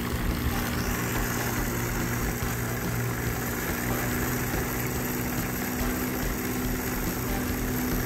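A motor idling steadily: an even, unchanging low hum.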